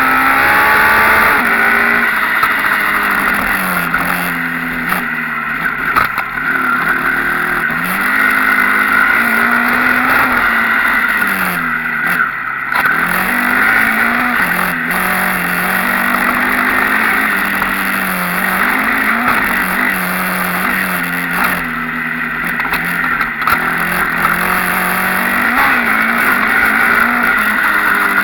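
Enduro motorcycle engine being ridden hard, its pitch rising and falling again and again as the throttle opens and closes, with a steady rushing noise over it.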